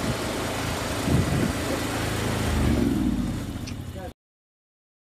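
An engine running steadily at idle, then cutting off abruptly about four seconds in.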